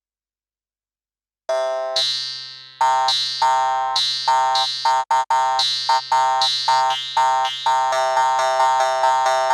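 A sampled Indian instrument from the SwarPlug 4 VST library playing a run of sharp-attacked, ringing notes over a low held drone. Silence for the first second or so, then a single note, and from about three seconds in a steady stream of notes, about two to three a second, with two very brief cut-outs around the middle.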